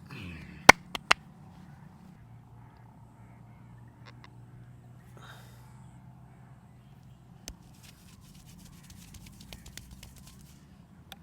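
Hand massage: three sharp percussive hits close together about a second in, a single sharp hit a few seconds later, then a run of faint quick ticks over a low steady hum.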